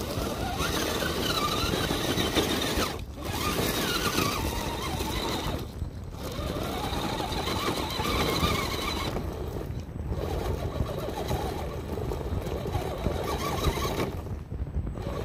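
Electric drive motor and gears of an FTX Hi-Rock 1/10-scale RC rock crawler whining as it crawls over loose rock, the pitch rising and falling with the throttle and cutting out briefly a few times. Wind on the microphone adds a steady low rumble underneath.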